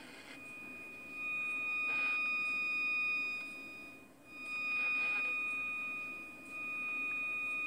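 An FM clock radio sounding the steady high-pitched test tone of a Conar 281 signal generator's modulation, with a light hiss, as the generator is tuned onto the radio's frequency. The tone fades out briefly about four seconds in and again near six and a half seconds as the tuning knob moves across the station.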